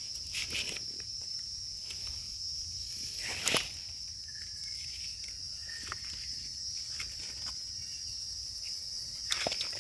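Steady high-pitched insect drone in the forest, with a few short crunches of leaf litter; the loudest crunch comes about three and a half seconds in.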